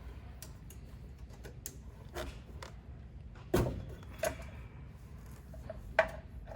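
A filter wrench being fitted onto a fuel/water separator filter canister: scattered small clicks and metallic knocks, with a sharper knock about three and a half seconds in and another near the end.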